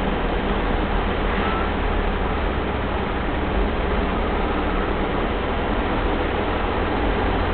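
Steady running noise of a 1983 Mitsubishi Pajero turbo-diesel cruising, heard from inside the vehicle, with a strong low drone from the engine and road.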